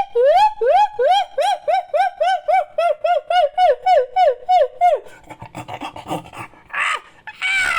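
Monkey-like creature call sound effect: a fast run of short hoots, each rising then falling in pitch, about four a second for some five seconds. It then breaks into a rougher, raspy chatter, with a sharper call near the end.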